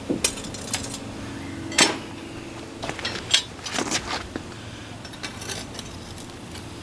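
Irregular metal clinks and knocks of tools, crucible and moulds being handled around a copper melt, the loudest about two seconds in, over a steady low hum.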